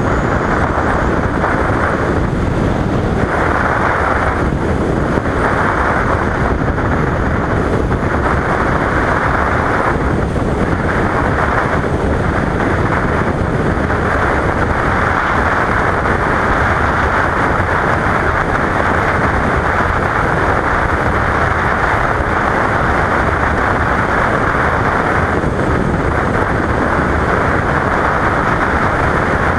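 Wind and road noise from a 2015 Yamaha FZ-07 motorcycle riding at highway speed, picked up by a helmet-mounted camera. The rush is steady and loud, swelling and easing every few seconds, and the engine's own note is buried under it.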